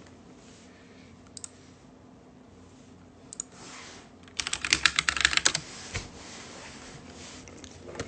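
Clicks of a computer keyboard being typed on: a few single key taps, then a quick burst of typing lasting about a second, a little over four seconds in.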